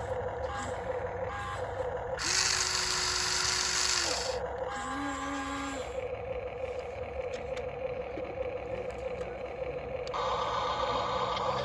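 Small electric motors and gears of radio-controlled Huina construction models whirring in short runs over a steady whine, with a louder, harsher run about two to four seconds in.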